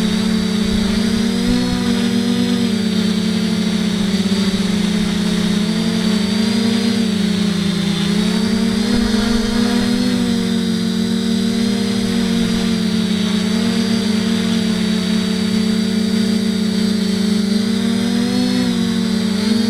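FPV quadcopter's electric motors and propellers whining steadily, the pitch wavering up and down with the throttle and dipping briefly near the middle.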